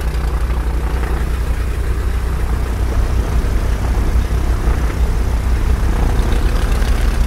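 The de Havilland Dragonfly's four-cylinder inverted Gipsy Major piston engines running steadily at low power on the ground, with an even low pulsing, growing a little louder about three seconds in.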